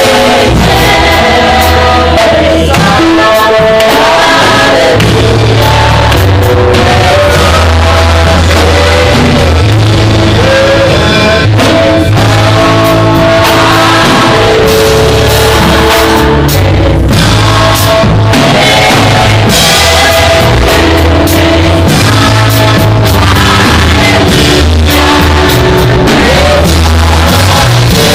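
Loud live praise music: a full band with heavy bass and drums, and voices singing over it.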